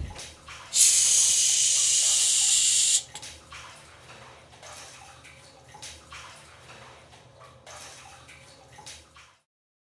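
Water running from a tap for about two seconds, stopping suddenly, then faint splashing and dripping in a bathtub.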